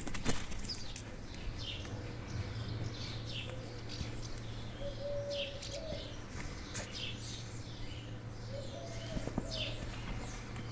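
Garden birds chirping, many short falling chirps repeated throughout, with a lower held call a couple of times. A sharp knock right at the start.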